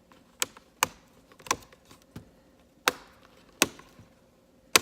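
Plastic snap clips of an HP 15-f272wm laptop's screen bezel popping loose as the bezel is pried off: about six sharp clicks at uneven intervals.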